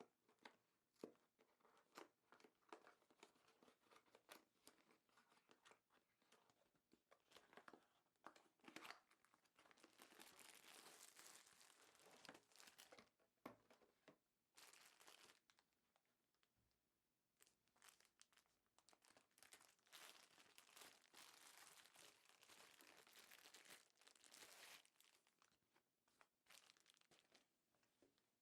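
Faint crinkling and rustling with many small clicks, heaviest in two long stretches in the middle and later part.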